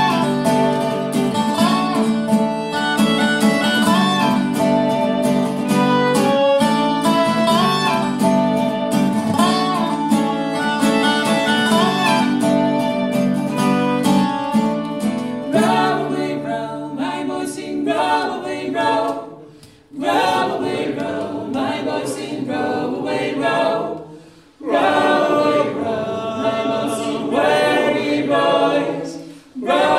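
Old-time folk music played live on fiddle, acoustic guitar and dobro, with the fiddle carrying the melody. About halfway through the instruments drop out, and three voices sing in harmony unaccompanied, with short breaks between lines.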